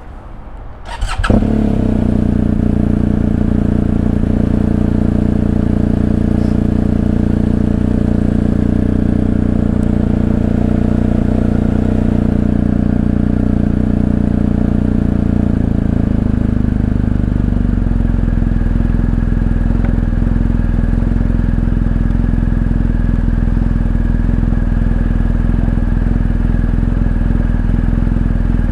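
Motorcycle engine starting about a second in, then running steadily at idle, its sound shifting slightly lower a little past halfway.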